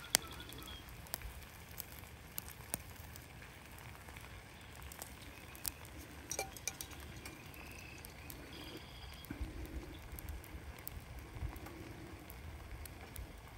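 Campfire crackling, with scattered sharp pops.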